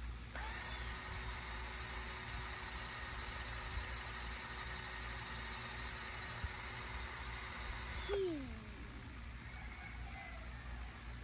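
Cordless drill spinning a small paint-covered canvas, its motor running at a steady speed for about eight seconds, then winding down with a falling whine.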